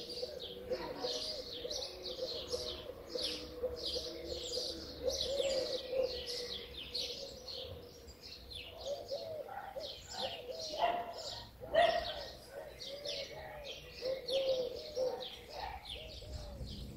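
Birds chirping in a rapid, continuous chatter, with a lower cooing call repeated throughout underneath.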